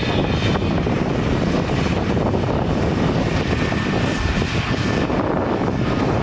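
Heavy diesel earthmoving machinery running, a steady loud engine drone with a faint thin whine in the middle.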